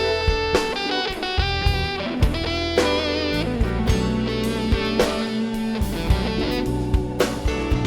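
Background music: an electric guitar playing sustained melody notes with a bending, vibrato passage about three seconds in, over a steady drum beat.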